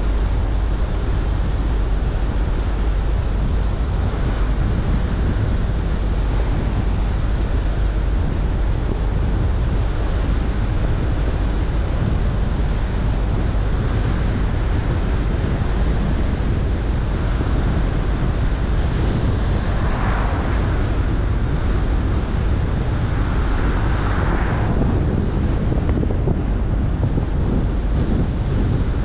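Steady wind and road noise of a car driving at speed, picked up by a microphone mounted on the car, heaviest in the low end. Two brief swells in the rushing sound come about 20 and 24 seconds in.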